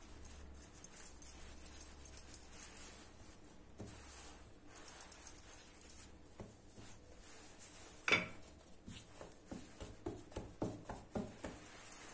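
Hands shaping pizza dough into balls on a floured granite worktop: faint rubbing and soft pats, with one sharper knock about eight seconds in and a run of light taps after it.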